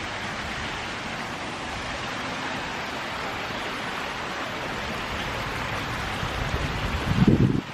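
Waterfall rushing steadily, with a low buffeting on the microphone near the end.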